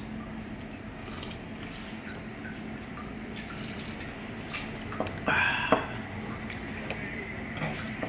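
A loud slurp of seaweed soup sipped off a spoon, about five seconds in, with a few light spoon clicks around it, over a steady low room hum.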